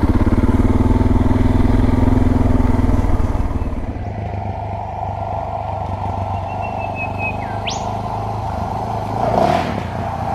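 Suzuki DR650's single-cylinder four-stroke engine running under way. It pulls harder for the first few seconds, then drops to a lower, steadier note about four seconds in, with a brief swell near the end.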